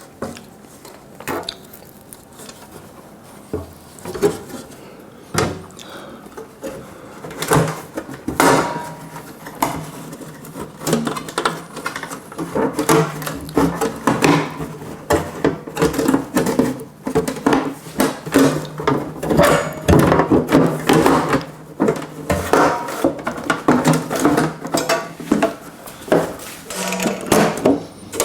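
Irregular knocks and clatter of the SciCan STATIM 2000 sterilizer's cover being handled and fitted back onto the unit. The clatter is sparse at first and gets busier from about halfway.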